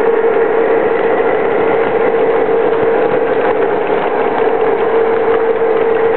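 Lionel O-gauge model passenger train rolling past on three-rail track: a steady hum with a fast, continuous rattle of clicks from the wheels running over the rails.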